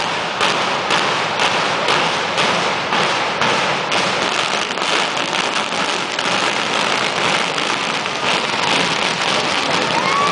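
Demolition charges of a building implosion firing: a string of sharp bangs about two a second that run together into a dense, continuous crackling din.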